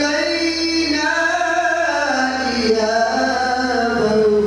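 A man's solo voice chanting melodically into a microphone, in long drawn-out notes that glide slowly up and down, with a brief breath about three-quarters of the way through.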